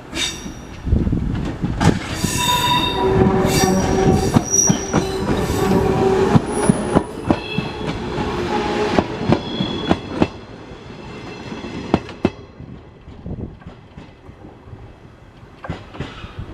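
105 series electric train passing over a level crossing, its wheels clacking over the rail joints with a steady high squeal from the wheels. It is loud for the first ten seconds or so, then the clacks thin out and fade as the train moves away.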